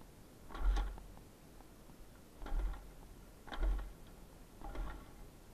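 Kickstarter of a WSK 125 single-cylinder two-stroke motorcycle being kicked four times, each kick a short thump with a brief rattle from the engine turning over. It does not catch and run.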